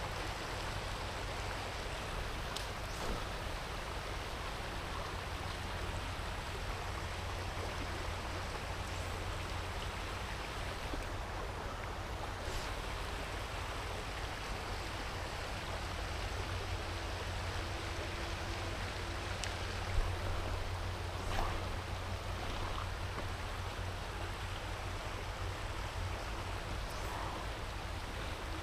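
Steady rush of flowing, shallow river water, with a few faint clicks and knocks scattered through it; one brief knock about two-thirds of the way in stands out.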